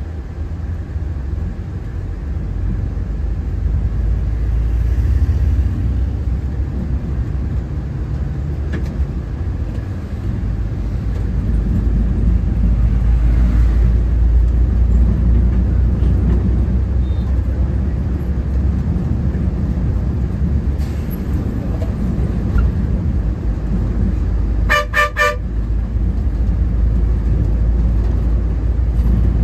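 Steady low rumble of a bus's engine and road noise, growing louder about a third of the way in. Near the end a vehicle horn gives a quick run of short toots.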